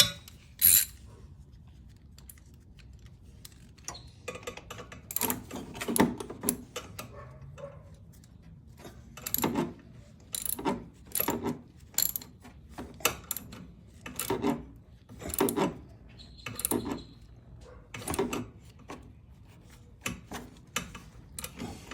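Ratchet wrench with a 17 mm socket tightening a bolt on the motorcycle's oil pan: repeated short bursts of ratchet clicks as the handle is swung back and forth, coming about once a second in the second half.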